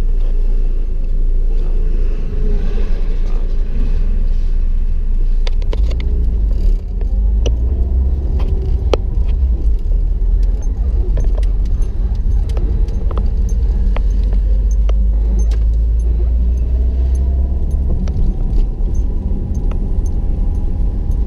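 Car driving, heard from inside the cabin: a steady low rumble of engine and road noise, growing heavier from about six seconds in until near the end, with scattered sharp clicks and rattles.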